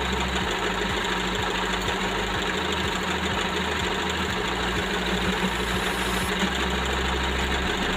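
Toyota model 461 sewing machine running steadily, its motor and needle stitching continuously during free-hand manual embroidery of a letter, with the speed shifting now and then.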